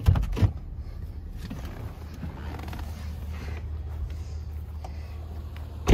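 Pickup truck door clunking open, with two sharp knocks, then slamming shut with one loud bang at the end, over a steady low rumble.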